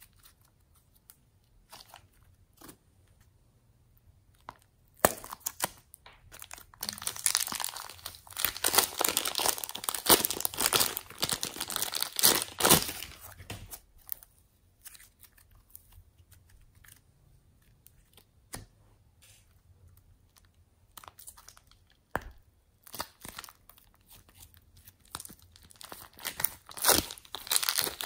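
Hands squishing and stretching homemade slime, making sticky crackling and popping sounds. The crackling is dense and loud for several seconds in the first half and turns to sparse clicks afterwards. Plastic wrap crinkles near the end.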